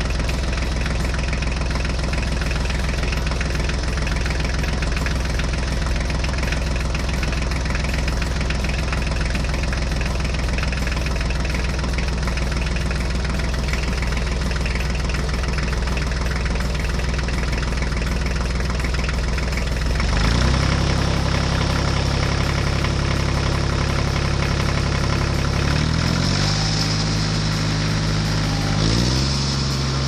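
Tractor engine sound running steadily at a deep idle with a knocking beat. About two-thirds of the way through, the pitch steps up abruptly, and it shifts again twice near the end.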